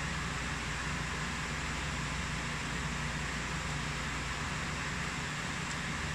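Steady background hiss with a low hum underneath, unchanging throughout, like a running fan or air conditioner; no distinct eating sounds stand out.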